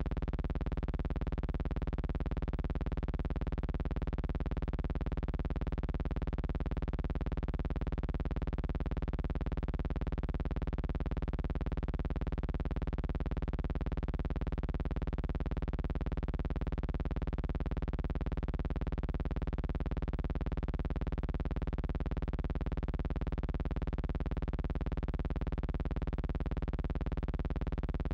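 A steady, unchanging buzz with many overtones at one pitch. It starts abruptly and holds the same level throughout.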